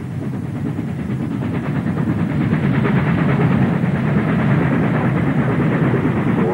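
Steam locomotive working hard as it passes, a steady rumble of exhaust and running gear that grows louder over the first few seconds.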